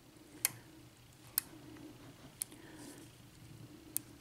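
Small sharp metallic clicks, four of them about a second apart, from a lock pick and tension wrench working the pins of a brass ERA 6-pin euro cylinder while the picker tries to regain a false set.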